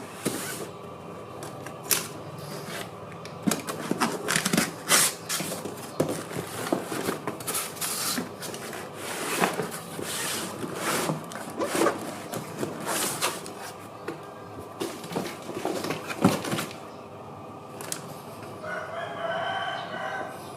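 A string of sharp clicks and rustling handling noises, uneven and on and off, until about three-quarters of the way through. Near the end a rooster crows once for about two seconds in the background.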